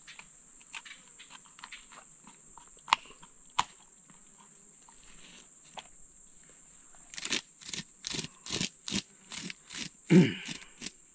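Knife scraping the scales off a peacock bass laid on a log: faint scattered scrapes at first, then from about seven seconds in a quick run of short rasping strokes, about three a second, with one louder knock near the end. A steady high insect drone sounds throughout.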